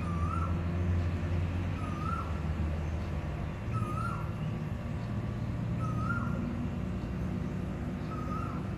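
A bird calling the same short note over and over, five times about two seconds apart, each note rising and then falling, over a steady low hum.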